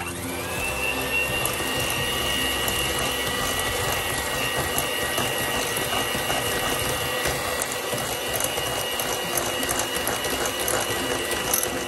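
Electric hand mixer starting up with a whine that rises within the first half second, then running steadily as its beaters whisk eggs in a glass bowl.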